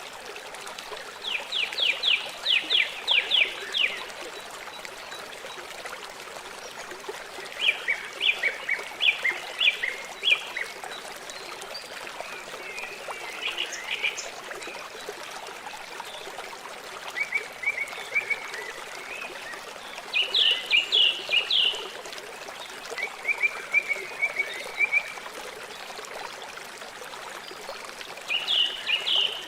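River water flowing steadily, with a rapid chirping trill repeating every few seconds above it.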